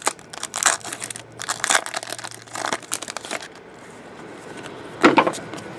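Foil trading-card pack wrapper being torn open and crinkled by hand, in ragged bursts of crackling through the first three seconds. A short, louder rustle follows about five seconds in as the cards are handled.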